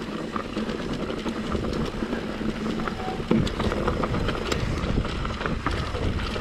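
Mountain bike riding over a rocky dirt trail: tyres crunching over stones, with many small knocks and rattles from the bike and a low rumble.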